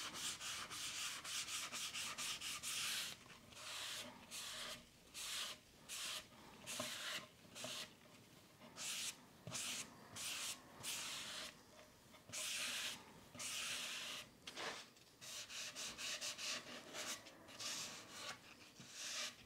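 Kitchen sponge scrubbing back and forth over a curved wooden chair seat, working in hard wax oil: a series of short hissing rubbing strokes with brief pauses between them.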